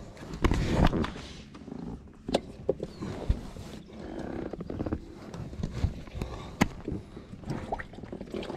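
Handling noise on a boat: scattered knocks and sharp clicks, with a few short squeaks, over a low rumble.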